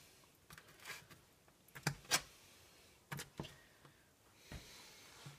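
A fork clicking and scraping against a metal baking sheet while picking up pieces of food: a handful of light, sharp clicks, the loudest about two seconds in.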